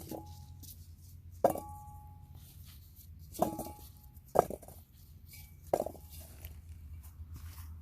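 Four sharp clinks of hard objects striking a container, each leaving a brief ring, spaced one to two seconds apart over a low steady hum.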